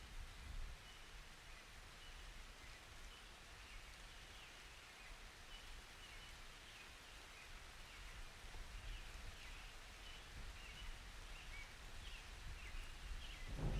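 Faint, steady light rain, with soft high chirps dotted all through it. The loudness creeps up toward the end.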